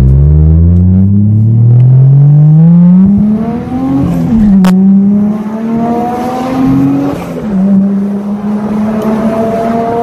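Toyota 1JZ VVTi inline-six with a Kakimoto Full Mega N1 exhaust pulling hard through the R154 five-speed's gears: the engine note climbs steadily, drops at an upshift about four seconds in, climbs again and drops at a second upshift about seven and a half seconds in, then holds nearly steady. A single sharp click comes just after the first shift.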